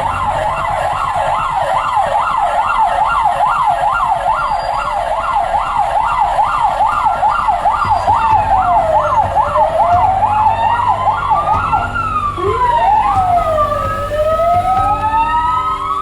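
Emergency vehicle sirens sounding an evacuation warning. A fast yelp cycles about three times a second, then gives way after about 12 seconds to several slow rising-and-falling wails overlapping, over a low engine rumble.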